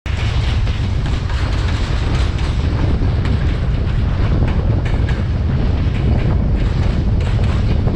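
Steady rush of wind buffeting the microphone of a camera riding on a moving car, over a low rumble of travel.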